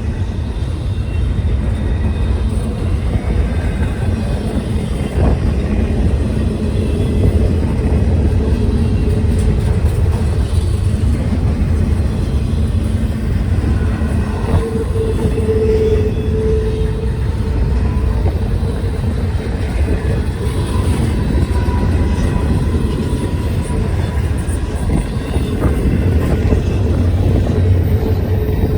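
Train rolling past, a steady loud rumble of rail cars on the track.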